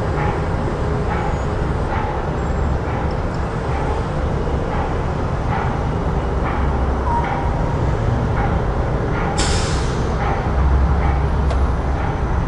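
Busy city street ambience: a steady rumble of traffic with scattered short ticks. About nine and a half seconds in there is a short, loud hiss.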